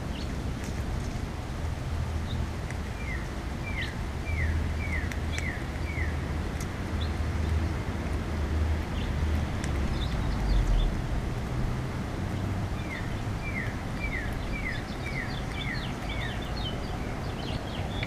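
A songbird sings a run of about six quick, clear falling notes, about three seconds in and again around thirteen seconds, with scattered short higher chirps near the end. Under it all runs a steady low outdoor rumble.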